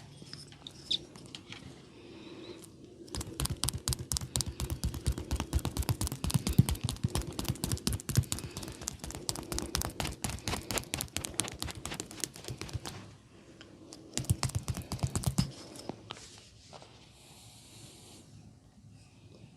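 Fast percussive massage: hands patting or chopping rapidly on a person, a dense, even run of quick slaps lasting about ten seconds, then a shorter burst after a brief pause.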